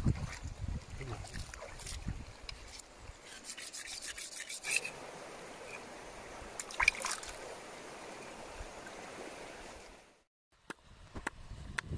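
Machete blade being sharpened on a wet river boulder: runs of quick scraping strokes of steel on stone, over the steady trickle of a stream. The sound drops out briefly near the end.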